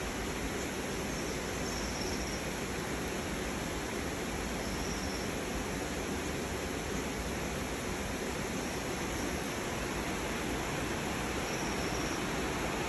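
Steady rush of a mountain stream, with a few faint high chirps now and then.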